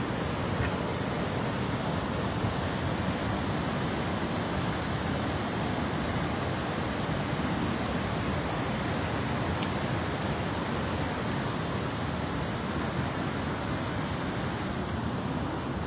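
Steady rushing of a swollen, muddy river in flood, its fast brown water churning over rocks after heavy rain.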